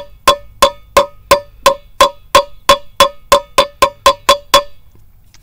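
Small ball-peen hammer tapping a new grease seal into the hub of a 1968 Ford F100 front brake drum, about three light strikes a second, each with a short metallic ring. The taps quicken a little and stop about four and a half seconds in, once the seal is seated.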